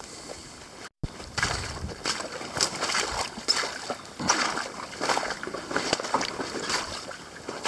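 Running footsteps splashing and squelching through shallow water and mud in a wooded swamp, about two strides a second.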